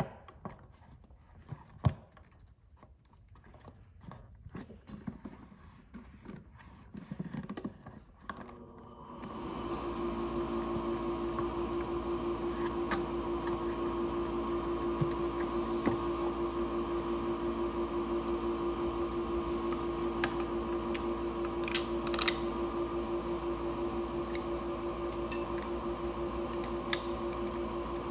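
Light clicks and handling of a scooter's rubber air-intake duct being fitted onto its plastic CVT cover. About nine seconds in, a steady machine hum with a fixed pitch comes on and holds level, with a few sharp clicks over it.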